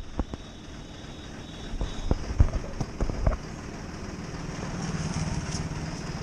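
Road traffic: a few dull thumps in the first half, then a steady low vehicle engine hum that swells about halfway through.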